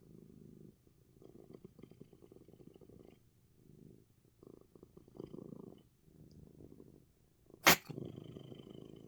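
Domestic cat purring in repeated in-and-out stretches with short pauses between them. Near the end comes one short, sharp burst, much louder than the purr.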